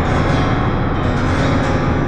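Background music with steady, sustained instrumental tones.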